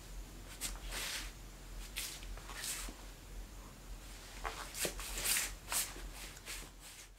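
Soft, scattered swishes of a layered tulle dress and light steps of heeled sandals as the wearer turns and poses, over a steady low hum.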